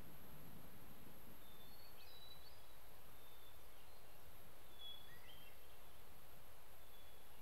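Quiet outdoor ambience: a steady low hiss with a few faint, short bird chirps scattered through it.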